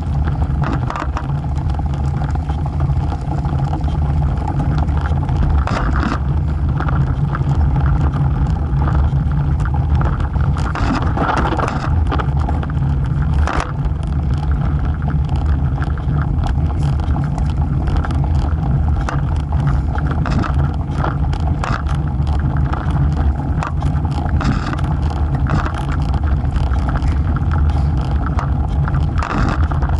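Road bike rolling along an asphalt road, heard through a camera mounted low by the front wheel: a steady low rumble of wind and road vibration on the microphone, with frequent clicks and rattles as the bike goes over bumps.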